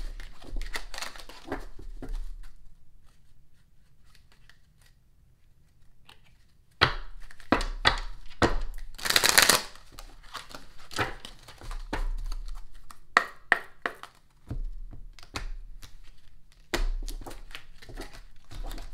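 Tarot deck shuffled by hand: quick card strokes and riffles, with a pause from about two to seven seconds in and one longer riffle about nine seconds in.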